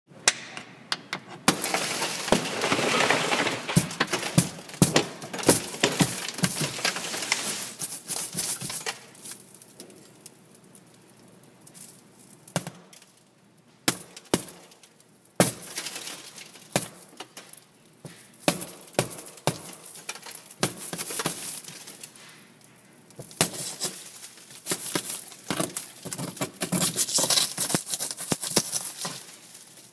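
A car side window of tempered glass shatters under a center punch, with a sudden crack at the very start. Bursts of crackling, crunching and clinking follow as the crazed glass is broken through and pieces fall. The sound eases off in the middle and picks up again for the second half.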